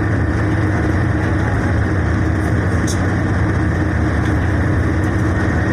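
Steady engine and road noise heard from inside a moving bus's cabin, an even low drone with a hum underneath.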